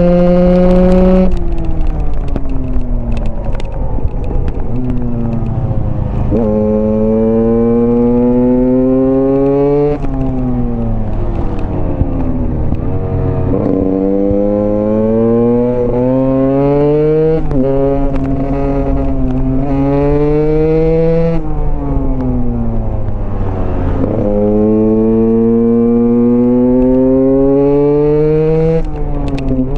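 Husqvarna TE 125's two-stroke single-cylinder engine revving hard. Its pitch climbs through the revs, drops sharply at each shift or lift of the throttle, and falls away on deceleration before climbing again, over and over.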